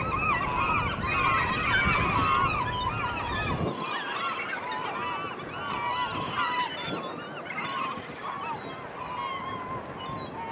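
A large flock of gulls calling, many short, arched cries overlapping continuously. A low rumble underneath drops away suddenly about four seconds in.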